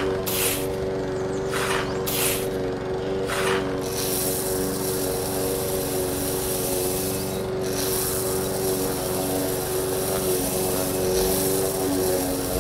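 Small motor belt-driving a miniature rice huller, running with a steady hum. In the first few seconds paddy grains are spooned into the hopper in short rattling bursts, then a steady hiss of grain passing through the mill takes over.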